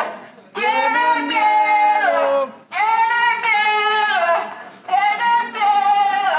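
A woman's voice singing long, high held notes in four phrases with short breaths between, each phrase sliding down in pitch at its end, like a wail.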